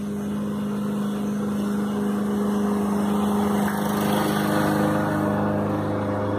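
A steady engine hum, a low droning tone that swells slightly around the middle.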